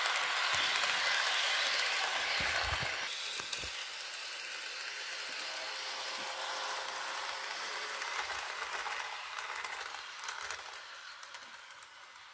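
HO scale Kato EMD GP35 model locomotive and its freight cars running on Bachmann track: a steady whirr of the motor and wheels with small scattered clicks. Loudest in the first three seconds as the train passes close, it drops suddenly about three seconds in and then fades toward the end.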